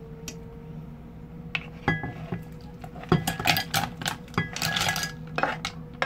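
Cooked mussels in their shells clattering and clinking as they are tipped from a frying pan into a bowl: a few clicks about a second and a half in, then a dense rattle of shells against pan and bowl from about three seconds in. A steady low hum runs underneath.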